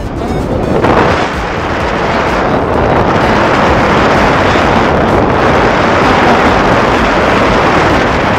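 Steady wind buffeting the camera's microphone, from the airflow of a descent under a parachute canopy.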